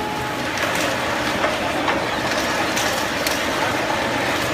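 Rubber crepe rolling machine running, its rollers crushing and pressing natural rubber: a steady mechanical noise with a handful of sharp cracks at uneven intervals.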